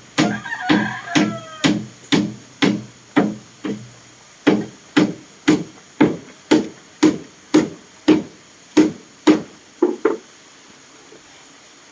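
Steady hammering: about twenty blows at roughly two a second, each ringing briefly, ending with a quick double blow about ten seconds in.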